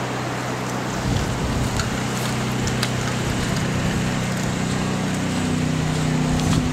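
Rushing of a flooded river, a steady hiss of fast-moving water, with wind rumbling on the microphone from about a second in and a steady low hum underneath.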